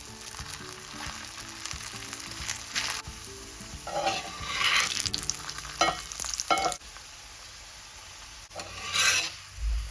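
Layered whole-wheat flatbread sizzling as it shallow-fries in hot olive oil in a pan. The sizzle swells louder about four seconds in and again near nine seconds, with a couple of light clicks in between.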